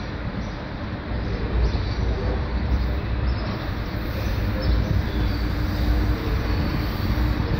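Electric commuter train approaching on elevated tracks, a low rumble that grows louder from about a second in.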